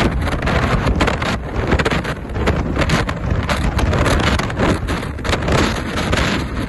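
Storm-force wind buffeting the microphone in heavy, irregular gusts, over rough water splashing and breaking against a seawall and shingle.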